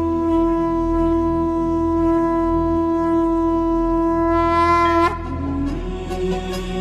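Conch shell (shankh) blown in one long, steady note that grows brighter toward the end and stops about five seconds in. Quieter music with a lower, sliding tone follows.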